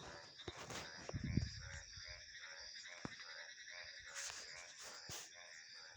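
Night chorus of frogs calling over and over, a few calls a second, over a steady high trill of insects. A brief low rumble, like a gust of wind, with a few sharp clicks about a second in.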